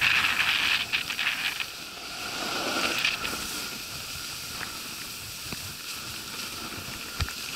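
Snowboard sliding over packed snow: a steady hiss of the base and edges, with louder scraping in the first second or so and again about three seconds in, and a short knock near the end.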